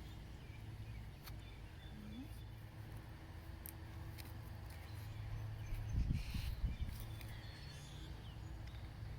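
Low steady rumble with a few faint bird chirps, and a brief cluster of low thumps on the microphone about six seconds in.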